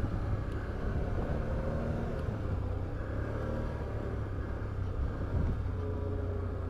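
Can-Am Outlander 850XT ATV's V-twin engine running at low speed in low gear and four-wheel drive, a steady deep rumble with its note rising and falling as the throttle changes.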